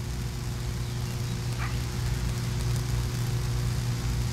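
Steady low electrical hum with a few fixed tones above it, as from overhead power lines.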